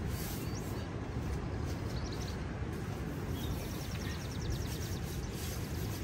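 Wind buffeting the microphone outdoors: a steady rushing rumble, heaviest in the low end. Partway through, a faint high trill of about ten quick notes a second sounds over it.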